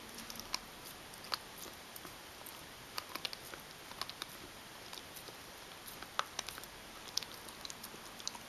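Shetland sheepdog gnawing a chew bone: irregular sharp clicks and cracks of teeth biting and scraping on the chew, a few a second with short pauses.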